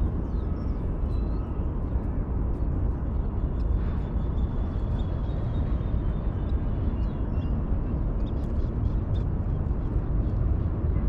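Steady low outdoor rumble with a few faint, thin high chirps over it.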